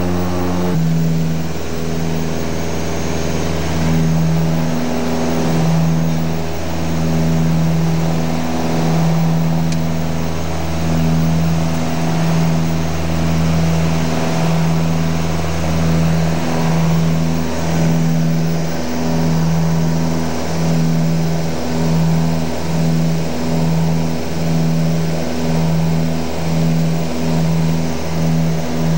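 Light airplane's piston engine and propeller droning inside the cabin in flight: a loud, steady drone with a slow, regular throb.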